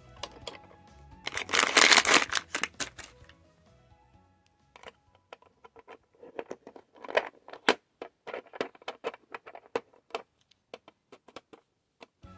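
Hard plastic clicks and clatter from the small doors of a plastic coffin-shaped toy box as they are unlocked and popped open. About a second in there is a loud burst of rustling, and clusters of quick clicks come later on.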